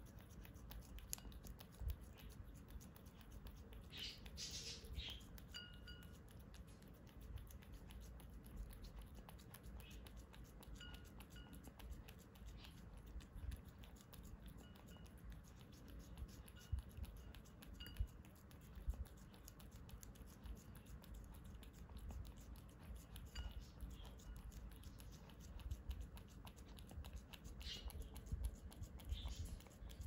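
Cat licking frozen treat cubes in a ceramic dish: faint, quick wet clicks of the tongue with occasional soft taps.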